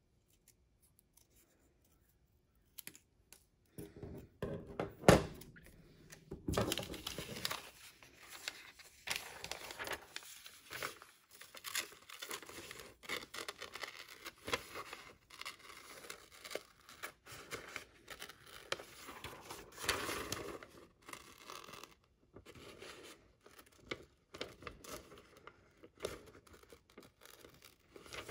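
Scissors snipping through newspaper in many short cuts, with the sheet rustling and crinkling as it is turned and handled. The cutting starts after a few seconds of quiet, with a sharper crackle about five seconds in.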